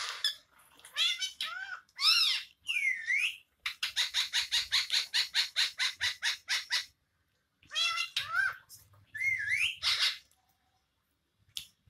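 Parrot calls: several shrill squawks that glide up and down in pitch, then a fast run of about ten short chirps a second for some three seconds, then more gliding squawks near the end.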